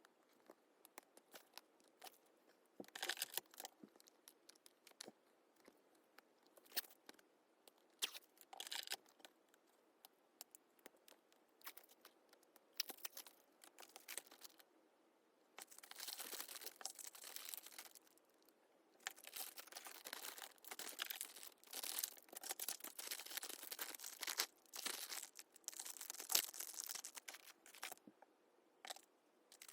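Album packaging being handled: faint rustling and crinkling of plastic and paper, with short tearing sounds in between and longer stretches of steady rustling in the second half.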